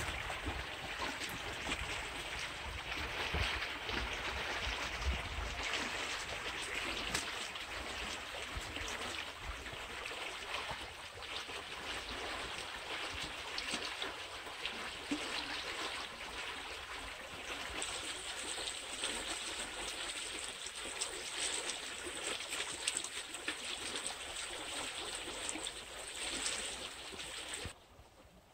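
Steady sound of water flowing over rocks, which cuts off sharply near the end.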